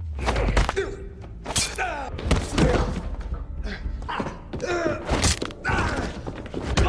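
Movie fight sound effects: a quick run of heavy punches and body thuds, with men grunting and groaning between the blows.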